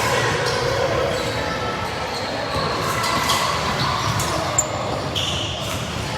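Indoor basketball game: a ball bouncing on a hardwood court and short high squeaks over the murmur of players and spectators, echoing in a large gym. A sharp brief squeak or click comes a little past the middle.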